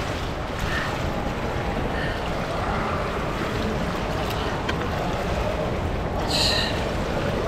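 Steady wash of water noise in an indoor swimming pool: water lapping against the pool edge close to the microphone, with a brief hiss near the end.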